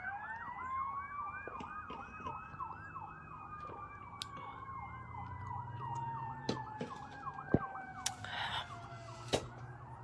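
Emergency vehicle sirens: one yelping fast, about three rising whoops a second, over another wailing slowly up and then gradually down. A few sharp clicks stand out, the loudest about seven and a half seconds in.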